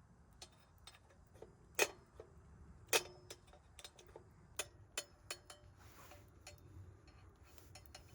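Kindling crackling and snapping as it catches in a small wood stove: irregular sharp snaps, two louder ones about two and three seconds in, some with a short ringing tail.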